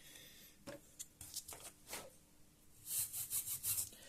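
Light clicks and short scratchy scrapes from hands and a small tool working on the plastic and metal parts inside an opened laptop, with a quick run of rasping scrapes about three seconds in.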